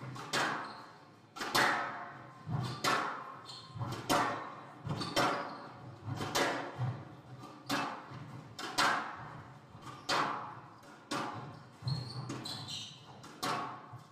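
Squash ball being struck by rackets and rebounding off the court walls during a rally: a string of sharp, echoing cracks about once a second, ringing in the large hall.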